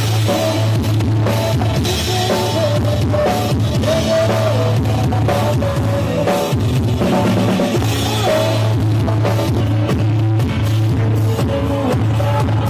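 A live rock band playing loudly: drum kit, electric guitar and bass guitar, with a sung melody over them.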